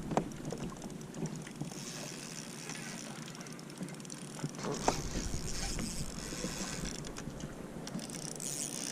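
Fishing reel being wound while a bass is fought from a kayak, with water and wind noise and a couple of sharp knocks against the boat.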